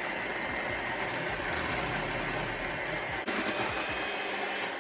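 Electric hand mixer running steadily, its beaters whirring through pumpkin cake batter in a glass bowl, with a brief dip about three seconds in.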